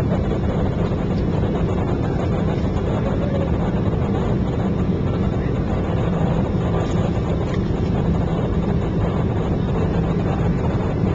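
Steady low noise of a jet airliner's cabin in flight: engine and airflow noise, heaviest in the bass, unchanging throughout.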